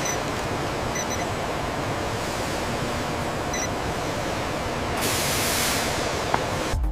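Steady, loud rushing hiss, like escaping gas or a jet, with no clear pitch. It swells brighter toward the end and then cuts off suddenly.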